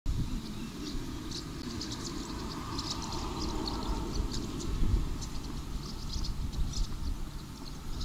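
Small birds chirping at dawn, many short high calls in an irregular stream, over a steady low rumble.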